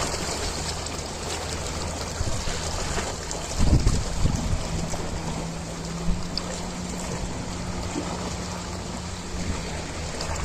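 Ocean waves washing in a steady hiss, with a louder low rush about four seconds in. A steady low hum runs underneath.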